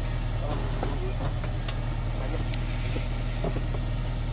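Steady low rumble of an engine idling, with scattered light clicks and knocks.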